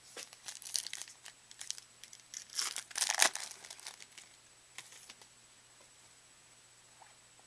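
Foil trading-card pack wrapper crinkling and tearing as it is handled and pulled open, in irregular bursts that are loudest about three seconds in and then fade to a few small clicks.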